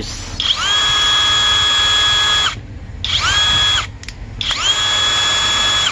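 Coofari impact wrench running with no load in reverse, pulled on three times: each run a whine that rises quickly to a steady pitch and then stops, the first about two seconds long, the second short, the third over a second. It is a test run after reassembly from a teardown, to check the tool still works.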